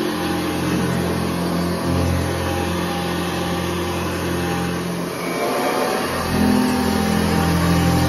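Upright vacuum cleaner with a cloth bag running steadily while being pushed over carpet. About three-quarters of the way in its note shifts, with a brief rising whine, and then runs a little louder as the nozzle moves from the low striped carpet onto a thicker doormat.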